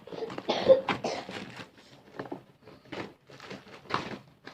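Parcel packaging being unwrapped by hand: plastic and cardboard rustling, crinkling and tearing, loudest about a second in, followed by scattered smaller rustles and light knocks.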